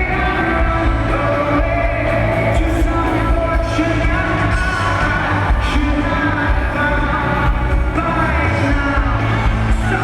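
Live rock band in full song, a lead singer's voice over a steady bass line and the band's instruments.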